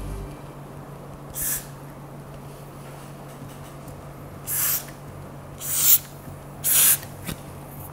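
Aerosol can of Got2b hair spray giving four short hissing sprays onto a lace wig frontal: one brief spray about a second and a half in, then three longer ones in quick succession near the end.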